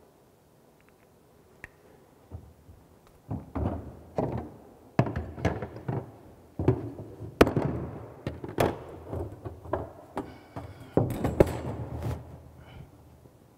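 Irregular knocks and thunks of hand tools being handled on a floor, among them a spirit level being picked up and moved. The sounds begin about three seconds in and stop shortly before the end.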